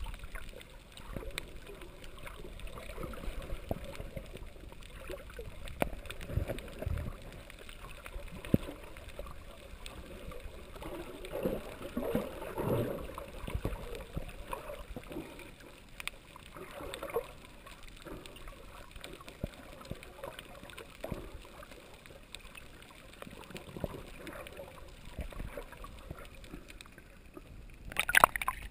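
Water heard underwater: low, uneven water noise with scattered faint clicks. Near the end the water splashes loudly a few times as the camera breaks the surface.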